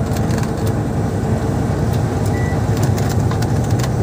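Truck running on the road: a steady low engine drone with frequent clicks and rattles, and a brief high tone about two and a half seconds in.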